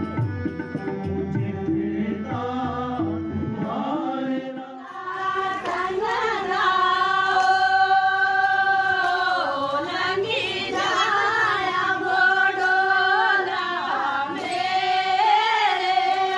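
Music: a low instrumental passage, then from about five seconds in, high voices singing long held notes in a slow, chant-like song.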